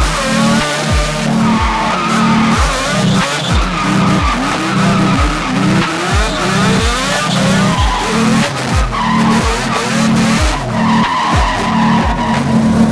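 Mazda RX-7 drift car's 26B four-rotor peripheral-port engine revving up and down with tyres squealing as it drifts. A steady music beat thumps about twice a second underneath.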